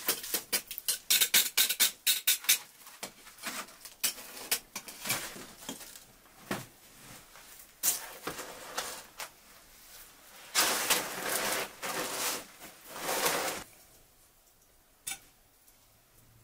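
Freshly baked tandoor flatbreads being handled and stacked: crisp crusts crackling and rustling, with a dense run of quick clicks in the first three seconds and longer rustling stretches a little after ten seconds in.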